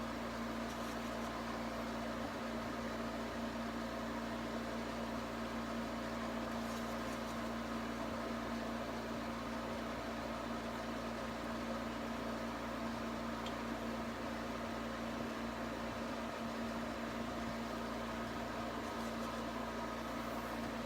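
Steady background hum with a constant low tone over a faint even hiss, unchanging throughout.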